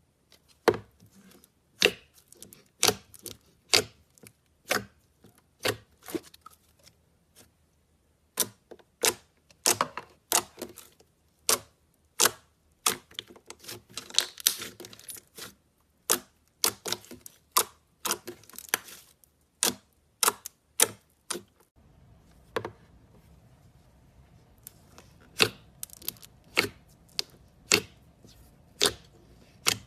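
Slime being squeezed and poked, making irregular sharp clicks and pops, a few each second with short pauses. A faint hiss joins in about two-thirds of the way through.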